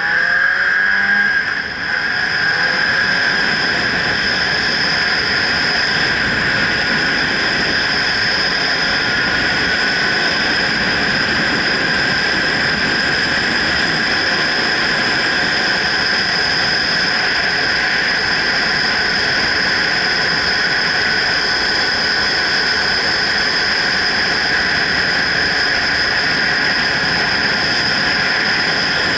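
Motorcycle riding at steady speed, heard through a helmet-mounted action camera: wind rushing over the microphone with a steady high whistling tone, and the engine running underneath. The loudness dips briefly about two seconds in, then holds even.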